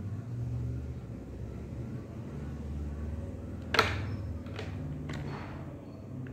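Handling noise from a charging cable and plastic charger adapter being handled over a table, under a low rumble. A sharp click a little under four seconds in, then a few fainter clicks.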